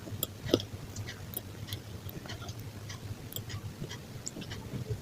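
A person chewing crunchy pizza, making irregular crisp crackles and snaps with a few louder crunches near the start.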